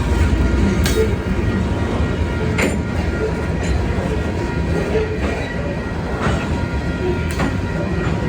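A train passing close by: a steady low rumble with sharp, irregular clacks of the wheels over the rail joints.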